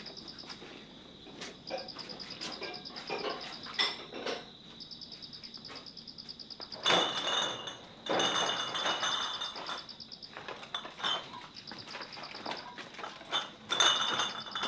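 Scattered knocks and clatter of crockery and plastic crates being cleared away and stacked, with a few louder scraping bursts. Behind it, insects chirp in short, evenly pulsed trills.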